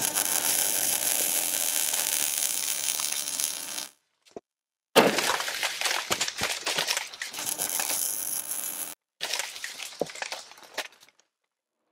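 Logo-reveal sound effects: a steady hiss for about four seconds and a brief tick, then a sharp hit about five seconds in, followed by a spray of crackling clicks that dies away near the end.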